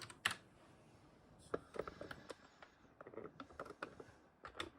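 Computer keyboard being typed on: a sharp keystroke just after the start, then scattered keystrokes in short runs with pauses between them.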